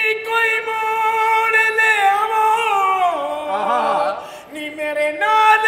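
A man singing long held notes in comic qawwali style, without accompaniment; the pitch slides down about two seconds in, a lower voice cuts in briefly, and a high held note returns near the end.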